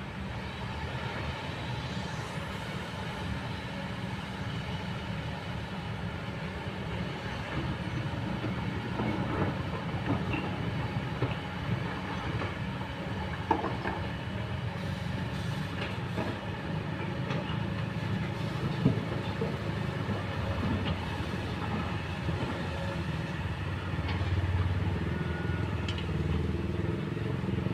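Kobelco long-reach excavator's diesel engine running steadily as the boom works, with a couple of sharp knocks about halfway through; the engine grows louder near the end.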